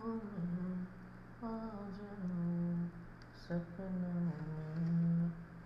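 A voice humming a slow tune in short phrases of held and gently falling notes, with no words, over a steady low hum.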